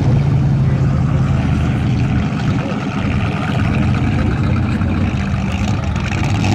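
Dirt-track race truck engines running steadily at low speed as the field circles slowly under caution.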